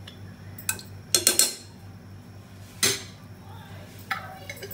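Metal spoon and utensils clinking against an aluminium pressure cooker pot: a handful of sharp clinks, a second or so apart.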